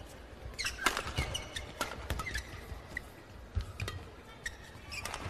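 Badminton rally: sharp racket hits on the shuttlecock at irregular intervals, with shoes squeaking on the court.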